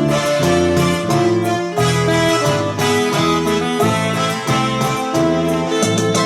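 Electronic keyboard playing a melody of held notes over a steady drum-and-bass accompaniment.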